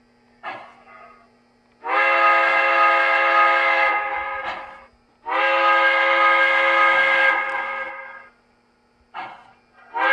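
MTH Protosound 3 steam-locomotive sound system in a USA Trains Docsider 0-6-0 model blowing its steam whistle (whistle #2), played through the model's speaker: two long blasts of about three seconds each, with a third starting near the end. Short hissing steam puffs sound between the blasts.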